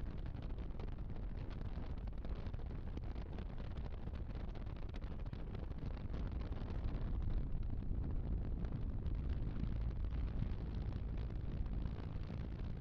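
Steady low rumbling noise with no distinct events, a little louder from about seven seconds in.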